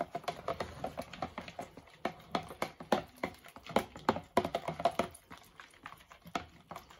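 Beef stock being stirred in a plastic measuring jug: a utensil makes quick, irregular clicks as it knocks against the sides of the jug.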